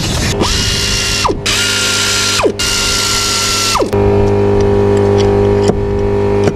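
Pneumatic air ratchet run in three short bursts. Each burst is a hissing whir that drops in pitch as it winds down when the trigger is let go. From about four seconds in, a steady low hum with evenly spaced tones takes over.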